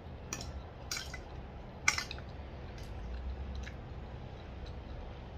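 Metal fork clinking and scraping against a plate while picking up noodles, peas and egg, with a few sharp clicks in the first two and a half seconds, the loudest about two seconds in, and soft chewing between them.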